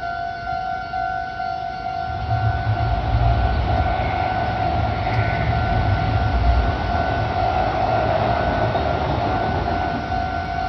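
Japanese level-crossing warning alarm ringing steadily in a repeating two-tone clang while a Meitetsu electric train runs over the crossing. The train's rumble rises about two seconds in and eases off near the end.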